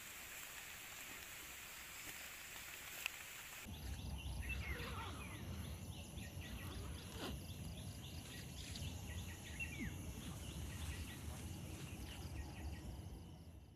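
A wok of noodle and shrimp broth bubbling with a steady hiss. About four seconds in it changes to outdoor ambience: low wind rumble on the microphone, a few short falling bird chirps and a rapid high insect-like ticking.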